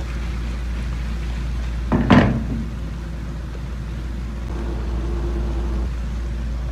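A steady low rumble with one sharp knock or clatter about two seconds in.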